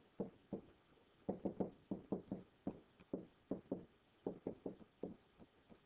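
Stylus pen knocking against a writing surface while writing by hand: a quick, uneven run of light taps, about three or four a second.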